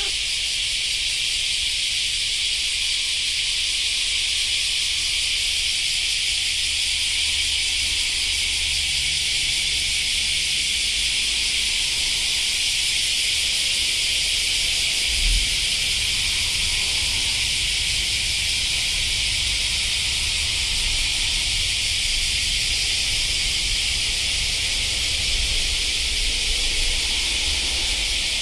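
Steady chorus of summer cicadas: an unbroken high, hiss-like drone that does not change, over a low rumble on the microphone, with a brief thump about fifteen seconds in.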